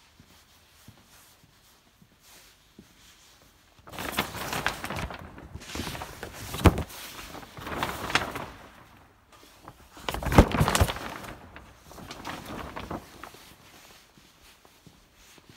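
Plastic sheeting rustling and crinkling in several loud bursts, with a couple of sharp knocks along the way.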